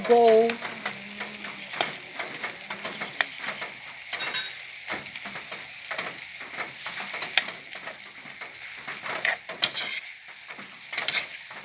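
Buttered shrimp sizzling as they fry in a pan, with a utensil stirring them and clicking and scraping against the pan at irregular intervals.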